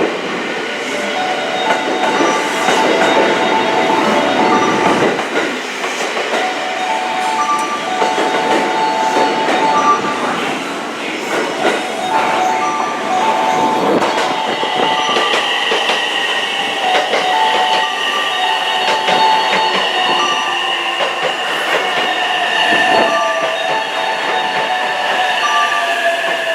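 Train pulling along the platform, its wheels squealing in short on-and-off tones at a few pitches, then a steadier high squeal from about halfway through that sinks slightly near the end.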